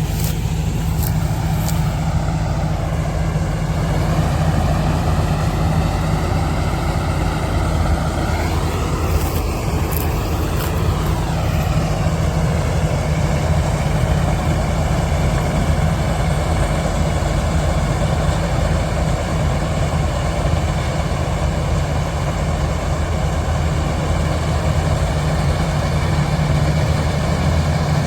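Kartar combine harvester running steadily, a heavy engine note with a machinery whine that rises and then falls about a third of the way in.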